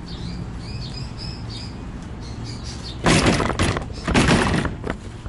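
Small birds chirping faintly over a steady low hum. About three seconds in comes a loud, rough scraping and rattling that lasts nearly two seconds, as a strip of birch plywood is handled and brought over, followed by a couple of short knocks.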